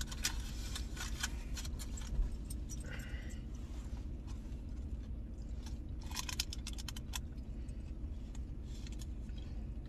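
Pickup truck engine idling, heard from inside the cab as a steady low hum, with scattered light clicks and rustles that bunch together about six to seven seconds in.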